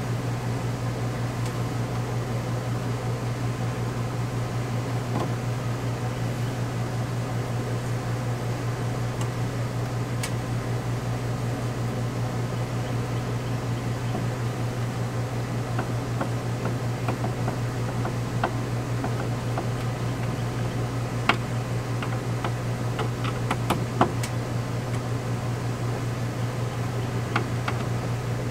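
A steady low mechanical hum, like a fan or air conditioner running, throughout. From about halfway on, scattered light clicks and a few sharper taps sound over it.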